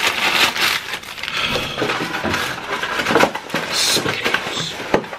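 Paper food liner crinkling and rustling as it is lifted and tipped to empty fried chicken tenders onto a tray.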